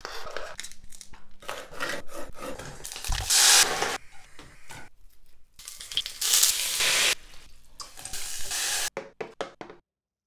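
Kitchen cooking sounds: shishito peppers sizzling in oil in a frying pan in two loud stretches, among clicks and knocks of utensils. A run of quick knocks comes near the end before the sound cuts off suddenly.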